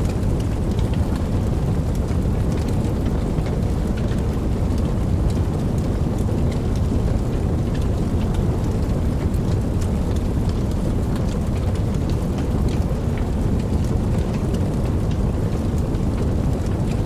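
Steady rain falling, with scattered sharp drop ticks over a constant deep low rumble.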